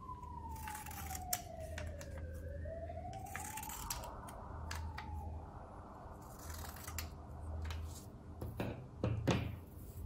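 Scissors snipping thin paper into small strips, a series of short cuts with the sharpest ones near the end. Behind them a faint wailing tone slowly falls and then rises again.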